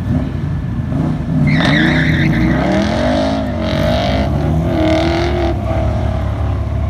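LS-swapped 1963 Chevy Nova's 6.0-liter V8 driven hard, its note rising and falling repeatedly as the driver gets on and off the throttle. Tires squeal in the turns from about a second and a half in.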